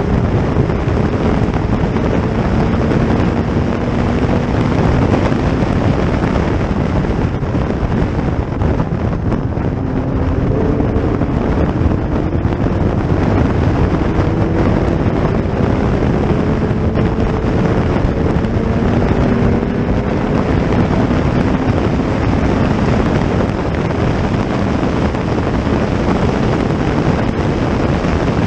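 Heavy wind buffeting on the microphone over the steady drone of historic racing car engines. Several faint engine notes rise slowly in pitch as the cars accelerate.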